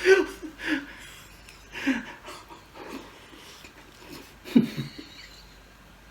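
A man's short breathy vocal sounds, like chuckles and exhalations, in about six separate bursts with quiet gaps between.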